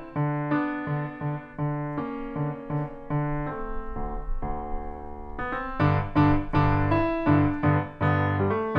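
Solo piano played live, a piece in progress with regularly struck notes. It softens for a couple of seconds near the middle, then comes back louder with heavy bass notes from about six seconds in.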